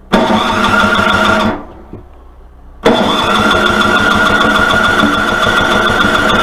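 Electric starter cranking a Toro snowblower engine in two bursts, a short one and then a longer one of about three and a half seconds, each cut off suddenly. The engine turns over but does not catch; the owner later finds that no fuel was reaching the cylinder.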